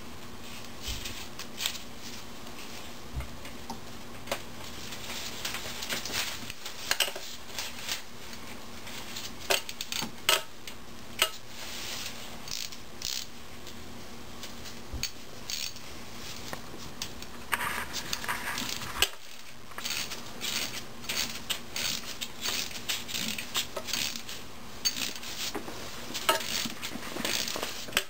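Hand ratchet and socket clicking and clinking against metal while the speed sensor bolts on a 4L80E transmission case are undone. Scattered sharp clicks, a short scraping rattle a little past halfway, and quicker clicking near the end.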